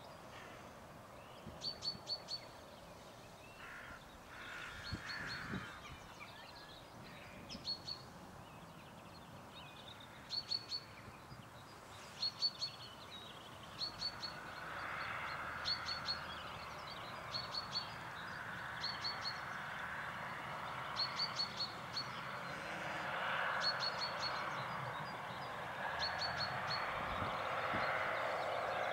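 A small bird calling over and over, a quick burst of three or four high notes about every one and a half seconds. From about halfway through, a distant single-car diesel train adds a steady rushing noise that grows louder towards the end.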